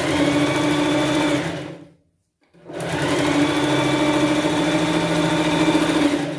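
Sewing machine stitching a seam at a steady speed in two runs, stopping for about half a second in the middle before sewing on.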